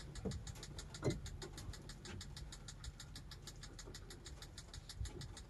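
A small motor running steadily: an even ticking of about eight a second over a low hum, with a few faint knocks.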